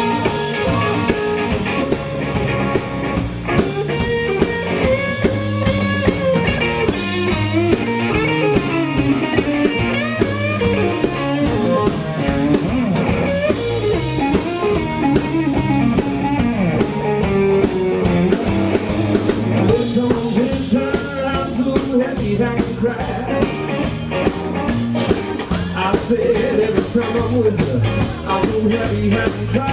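Live electric blues band playing: harmonica cupped to the microphone over electric guitar, electric bass and drum kit, with bending notes throughout.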